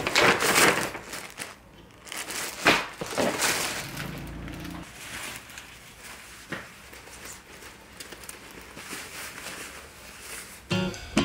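A brown paper shipping bag crinkling and rustling as it is torn open, loudest in the first second, with a few sharper crackles a few seconds in. Softer rustling follows as a nylon track jacket is pulled out and shaken open.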